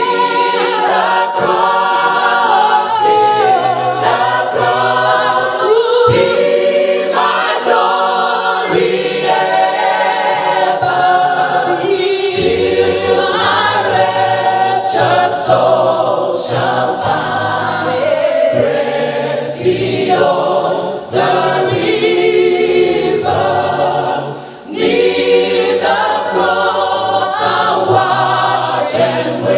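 A choir singing a sacred song in several voices, phrase after phrase, with two brief breaks in the later part.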